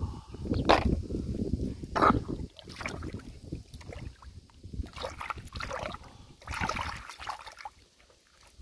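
Shallow muddy water splashing and sloshing in irregular bursts, with two sharper, louder splashes about one and two seconds in, the sound of someone working through the wet lake bed for clams.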